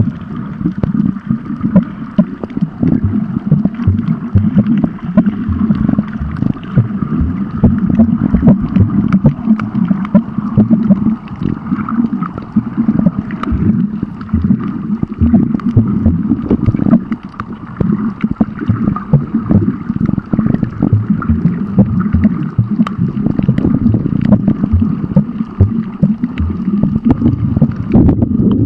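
Muffled underwater sound over a coral reef: a steady low rush of moving water, with many small clicks and crackles scattered through it.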